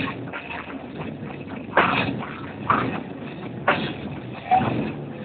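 Live amplified rock band on stage, with sharp loud hits landing roughly once a second over a muddy background wash.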